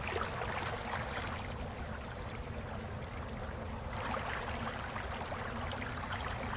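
Snowmelt water running and trickling: a crackly hiss of flowing water, easing off briefly in the middle, over a steady low rumble.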